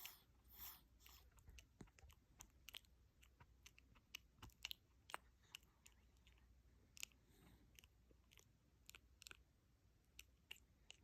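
A dog chewing and crunching food, making faint, irregular crunches and clicks.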